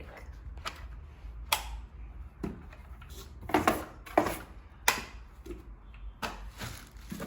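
Hard plastic parts of a new Von bagless vacuum cleaner being handled and fitted: a series of irregular clicks and knocks, about half a dozen spread over several seconds.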